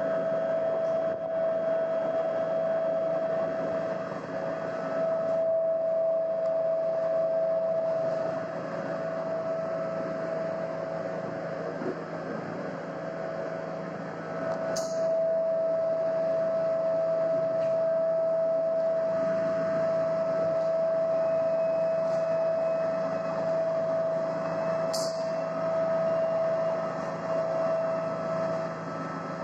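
A steady droning hum: one held tone over a rough noisy wash, broken by two short sharp clicks about ten seconds apart.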